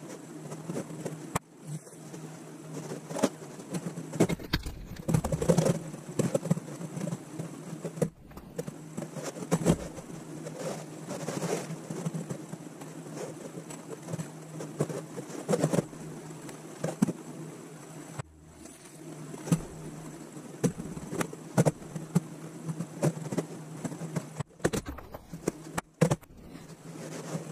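Pine boards and a glue bottle being handled on a wooden workbench: irregular knocks, taps and scrapes over a steady low buzzing hum.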